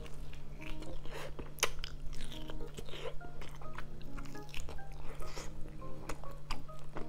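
Close-up sounds of a person biting and chewing pork ribs adobo held in the hand: irregular sharp clicks of the mouth, over background music with short held notes.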